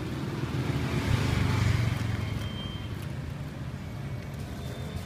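Street traffic: a motor vehicle's engine running close by, loudest between one and two seconds in and then fading away.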